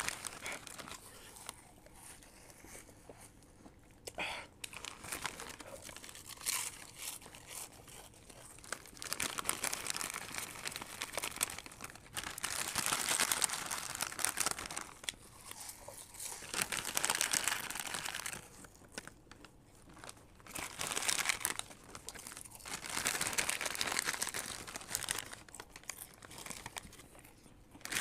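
Foil snack packets crinkling as hands rummage in them for chips. The crinkling comes in bursts of a few seconds with quieter gaps between.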